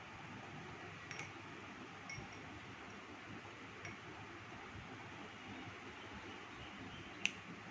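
Light clinks as a puppy eats at a clear bowl with a metal leash clip on its collar: a few faint ones, then one sharper, ringing clink near the end, over a steady hiss.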